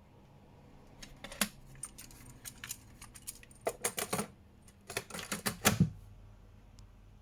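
Plastic clicks and clatter from a cassette being handled and changed in a cassette player: scattered sharp clicks, busiest around the middle and just before the end.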